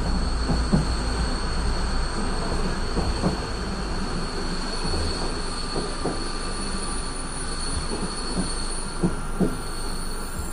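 Running noise of a moving passenger train heard from inside the carriage: a steady rumble with irregular knocks from the wheels over rail joints and points, and a thin steady high whine over it.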